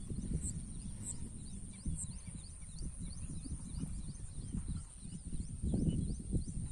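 Outdoor ambience: wind rumbling on the microphone, stronger for a moment near the end, with birds chirping and a steady high-pitched whine.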